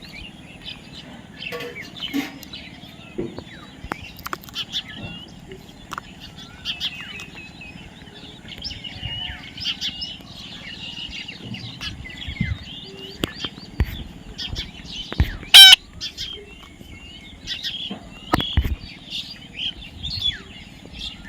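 Parrots chirping and chattering, with scattered clicks and knocks. About fifteen seconds in comes one loud, shrill squawk.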